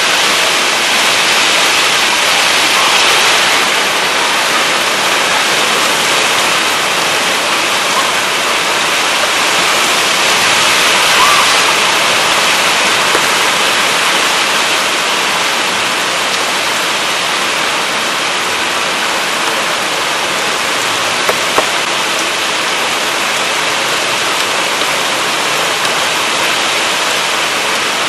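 Heavy rain pouring down in gusty wind: a steady rushing hiss that swells a couple of times.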